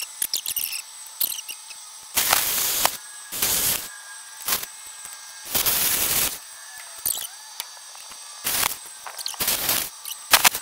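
Plasma cutter cutting through the rusted steel rear frame of a 1958 VW bus, in about seven short hissing bursts of half a second to a second each. Small clicks and crackles come between the bursts.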